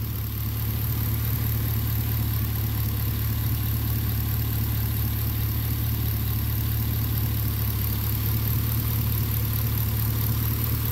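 Chevrolet Caprice PPV's 6.0-litre L77 V8 idling steadily. It runs on thick 10W-60 oil with cylinder deactivation (AFM) disabled, which the owner uses to quiet the chirp of a failing roller lifter until the cam and lifters are replaced.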